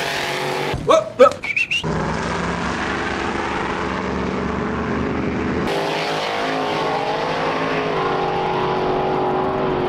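Drag-racing engines of a turbocharged pickup and a Mustang launching off the line, with loud sharp bursts of rising pitch about a second in, then running hard at full throttle down the track.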